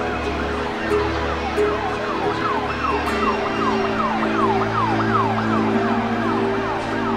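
Emergency vehicle siren sounding in quick falling sweeps, about three a second, growing clearer about three seconds in, over sustained low notes of background music.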